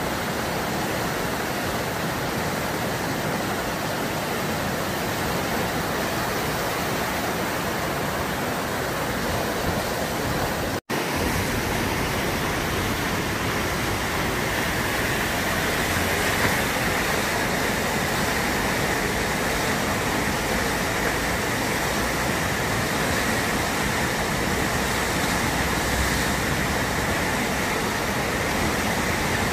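Steady rush of whitewater from a standing river wave, fast channel water churning over a ledge. The sound cuts out for a split second about eleven seconds in.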